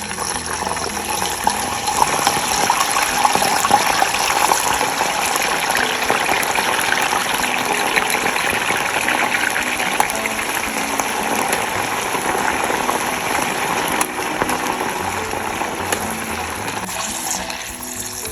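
Food frying in hot oil: a dense, crackling sizzle that eases off a little near the end.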